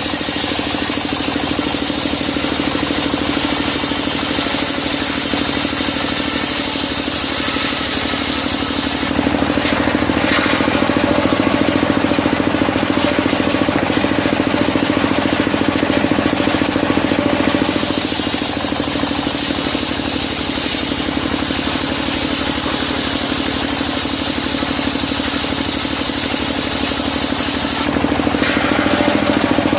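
Engine-driven circular sawmill running steadily, its blade cutting through medang kuning timber in two long passes: a hissing cut for the first nine seconds or so, then about eight seconds of the blade spinning free, then a second cut of about ten seconds that stops near the end.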